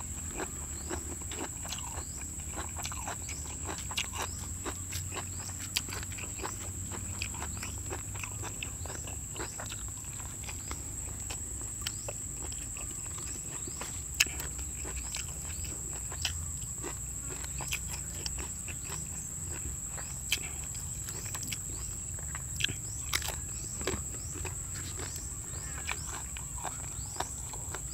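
Close-up eating sounds: a man chewing and biting into grilled field frog and sticky rice, with scattered sharp crunches and smacks. A steady high-pitched insect trill carries on underneath.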